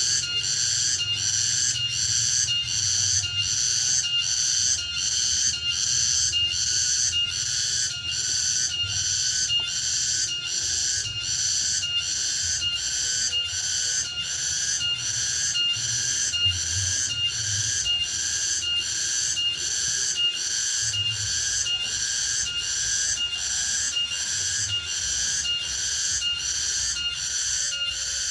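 A cicada calling continuously: a loud, high-pitched buzzing song that pulses in an even rhythm, a little more than once a second.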